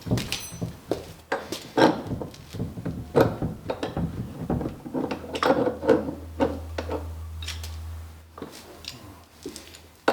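Irregular clinks and knocks of metal fittings and washers being handled against a wooden rudder and bench, with a low hum in the middle.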